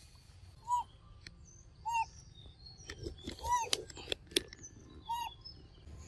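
A bird calling four times, each a short rising-and-falling note about every second and a half, with a few sharp clicks in between, the loudest about four seconds in.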